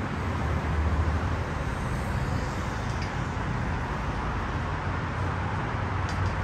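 Steady traffic noise from a busy multi-lane highway: vehicles passing with a low rumble that swells about a second in.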